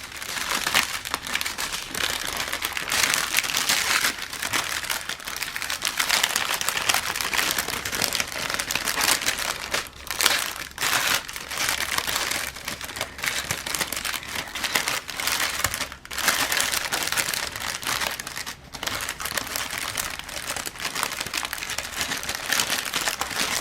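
Plastic packaging of a diamond-painting kit crinkling and rustling as it is handled, going on almost without a break apart from a few short pauses.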